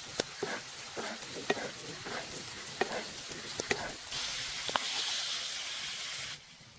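Meat sizzling in hot fat in a cast-iron skillet as it is basted with a wooden spoon, with sharp spitting pops. About four seconds in the sizzle turns into a louder, steady hiss, which drops away suddenly near the end.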